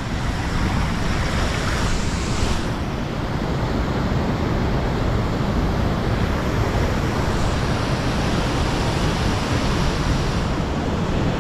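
Monsoon waterfall's falling water rushing, a steady, even noise without let-up.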